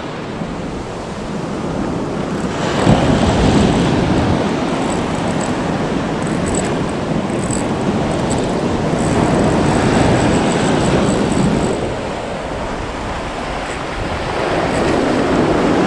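Breaking surf washing in over a gravelly shore, heard close up as a steady rush of foaming water that swells about three seconds in and again around ten seconds.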